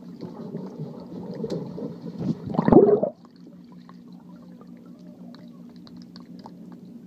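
A dog paddling past an underwater camera in a swimming pool, heard from below the surface: muffled churning and bubbling that builds to a loud gurgling rush nearly three seconds in and stops abruptly. After that comes a steady low hum with scattered faint clicks.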